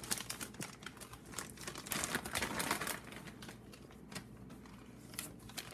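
Bag of popcorn crinkling and rustling as it is handled, in irregular crackles that are busiest in the first few seconds and then thin out.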